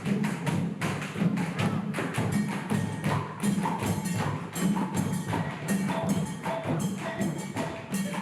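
Percussion-driven music: fast, dense drum strikes over a deep drum pulse, with short melodic notes joining about three seconds in.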